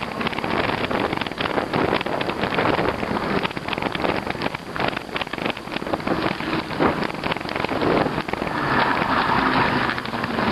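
Road and wind noise from a moving e-bike: a dense, continuous crackle of tyres running over snow and slush, with wind buffeting the microphone. A steadier hiss swells about two-thirds of the way through.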